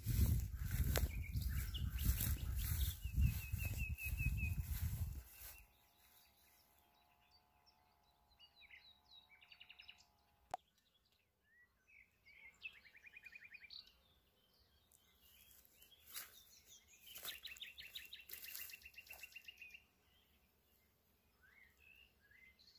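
Songbirds singing in short, fast trills that come back several times, after about five seconds of low rumbling noise on the microphone at the start.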